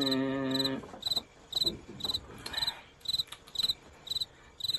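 Cricket chirping, about two short chirps a second, used as the stock sound of an awkward silence. In the first second a man's voice holds a single steady note over it.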